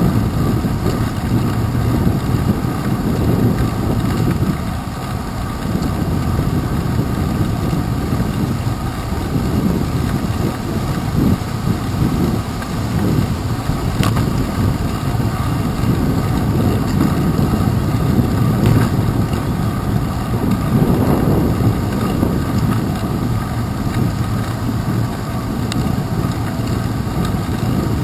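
Steady low rumble of wind buffeting a handlebar-mounted GoPro Hero 2, mixed with road noise from a bicycle rolling over wet pavement.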